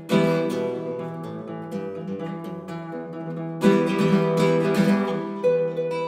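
Classical guitar playing. A loud strummed chord at the start rings on, a second burst of quick strums comes about three and a half seconds in, and it eases into single plucked notes near the end.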